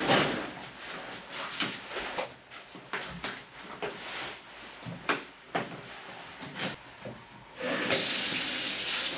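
Stiff synthetic jacket fabric rustling in short irregular bursts, with a few knocks, as the hood and suit are adjusted. About three-quarters of the way in, the bath mixer is turned on and water starts running steadily from the handheld shower head.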